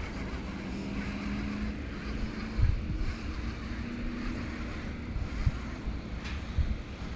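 Wind rumbling on the microphone, with a couple of stronger gusts, over a steady low hum that fades out near the end.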